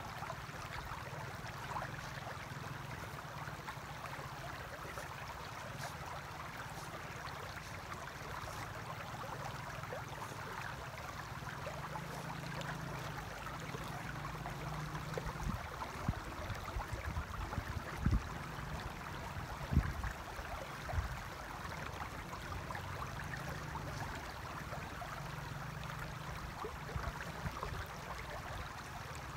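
Shallow river running over stones: a steady rushing hiss. Underneath is a low rumble, with a few short low thumps between about 15 and 21 seconds in.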